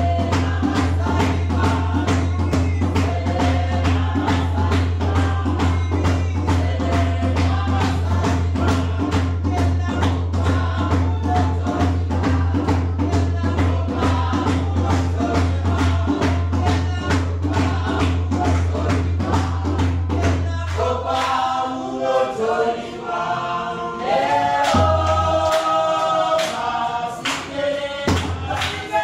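A group of performers singing together over a steady percussive beat and a low drone. About twenty seconds in, the beat and drone drop out for a few seconds at a time, leaving mainly the voices.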